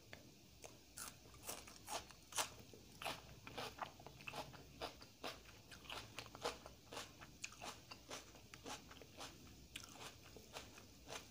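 Close-miked chewing of crisp, crunchy food: a run of sharp crunches, about two or three a second.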